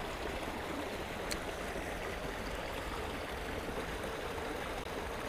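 Water of a shallow rocky creek flowing steadily over stones, with a single faint tick about a second in.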